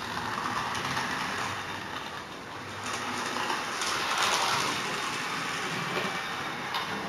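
Model train running on the layout's track, its wheels rattling over the rails in a steady clatter that grows louder about three to four seconds in.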